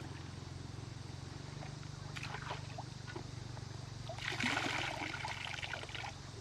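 Water splashing or pouring for about two seconds, over a steady low hum.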